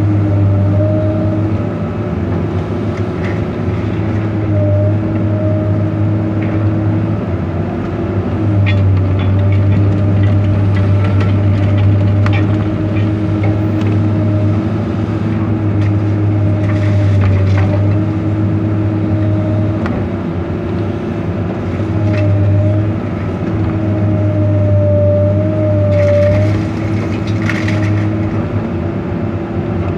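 Komatsu PC200 excavator's diesel engine and hydraulics running under load, a steady drone whose pitch wavers slightly as the grapple works. A few short harsh bursts of crunching metal come in the second half as the grapple handles a scrap car body.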